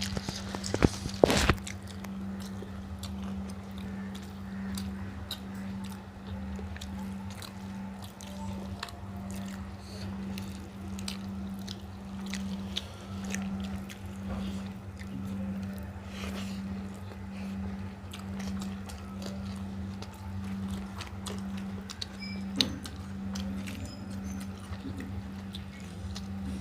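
People eating rice and egg curry: chewing and small mouth and plate clicks, with a few louder knocks in the first second or so. A steady low hum runs underneath, pulsing about one and a half times a second.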